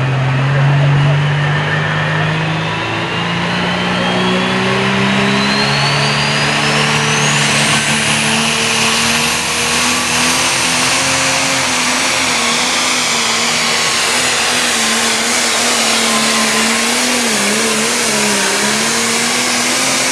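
Turbocharged diesel engine of an International light pro stock pulling tractor at full throttle, pulling the sled. The engine note climbs over the first few seconds while a thin turbo whine rises steeply to a very high pitch about eight seconds in, then the engine holds at high revs, wavering briefly near the end.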